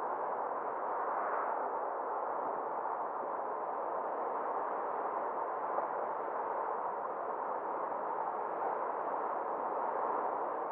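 Steady rushing noise of a car driving along a road: tyre and wind noise, even and unbroken.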